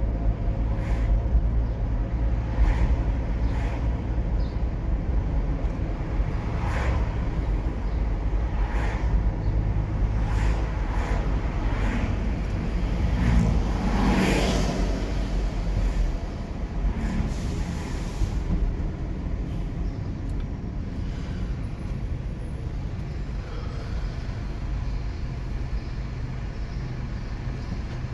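Steady engine and road rumble from inside a moving vehicle in city traffic, with a few short knocks or rattles. A hissing whoosh rises and falls about halfway through, and the low rumble eases a couple of seconds later.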